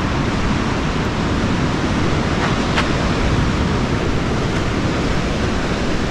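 Ocean surf breaking on rocks, a steady rushing noise, with wind rumbling on the microphone.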